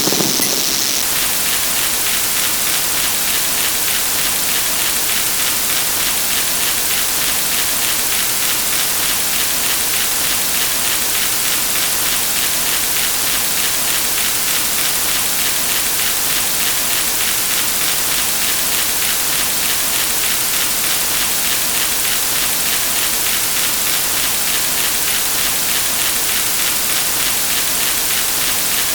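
A steady, dense hiss like heavy rain or static, with a faint rapid flutter running through it, from many stacked looping sound effects playing at once. A brighter sound on top cuts off about a second in.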